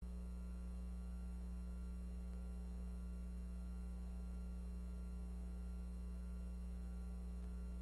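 Steady low electrical hum, a mains-type hum with a second, higher hum band above it, unchanging throughout.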